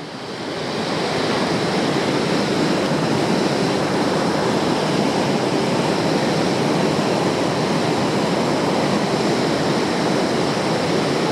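Mountain creek rushing through a rocky whitewater chute: a steady roar of white water that swells over the first second and then holds level.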